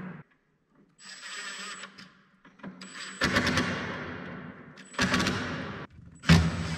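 A Makita 18V cordless impact driver drives screws into oak in four short bursts: about a second in, about three seconds in, about five seconds in, and near the end. Each burst is a rapid rattle of hammer blows, with a high motor whine as the trigger is pulled.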